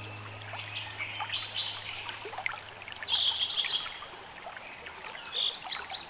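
Birdsong, with many short chirps and trills and the loudest calls about three seconds in, over the steady trickle of running water. A low held music note fades out during the first few seconds.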